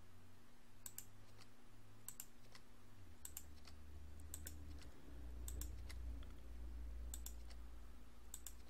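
Computer keyboard key presses and mouse clicks, mostly in quick pairs about once a second, over a faint low hum. This is the rhythm of adding one vertex after another in Blender: the E key, then a left click.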